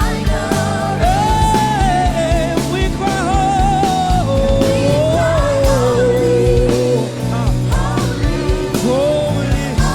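Gospel worship band playing live: a single lead melody line that slides and bends over held chords, bass and drums.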